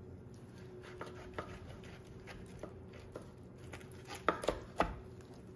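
A knife slicing down between the bones of a rack of smoked spare ribs. The blade knocks lightly on a wooden cutting board about a second in and three times, more sharply, near the end, over a faint steady hum.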